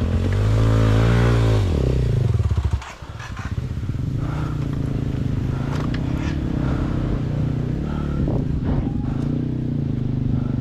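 Motorcycle engine revving up and easing off about two seconds in, then running steadily at lower revs.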